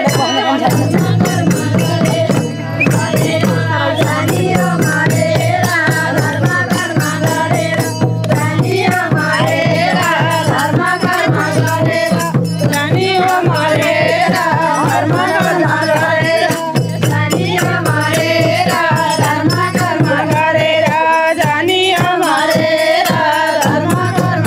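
Nepali bhajan music between sung verses: a madal drum keeping a steady rhythm under continuous jingling, rattling percussion, with a steady low drone and a wavering melody line over it.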